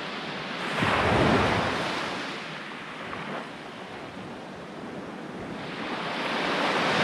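Sea surf breaking on the shore: a wash of waves rises suddenly about a second in and fades, and another swells up near the end.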